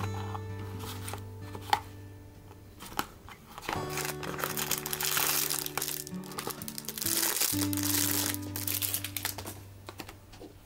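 Thin plastic wrapping crinkling and a small cardboard box rustling as a miniature cream-soda glass is unwrapped, loudest from about four to nine seconds in, over soft acoustic guitar background music.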